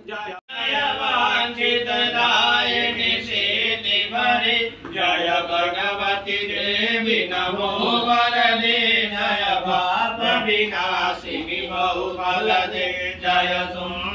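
Sung Hindu mantra chant, a continuous melodic vocal line that starts after a brief dropout about half a second in.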